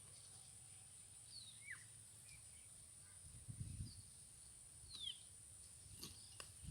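Near quiet outdoors: a few faint, short, falling bird chirps over a steady high-pitched hiss, with soft low wind bumps on the microphone midway and two faint sharp clicks near the end.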